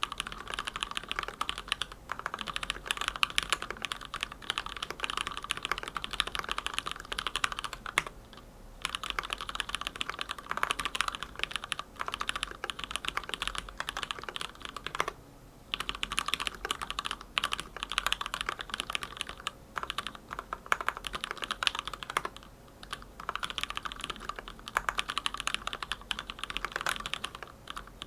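Steady typing on a hand-wired mechanical keyboard with Gateron Milky Black linear switches lubed with Krytox 205g0, in a stacked acrylic case: a dense run of keystrokes broken by a few short pauses.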